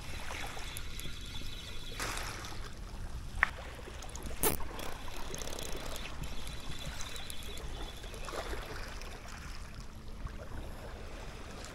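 Shallow seawater lapping and trickling against a rocky shore, with a few sharp clicks, the clearest about three and a half and four and a half seconds in.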